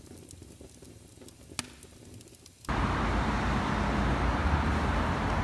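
Quiet room tone with a faint click, then city street traffic noise that starts suddenly about two and a half seconds in and runs steady and loud, with a heavy low rumble.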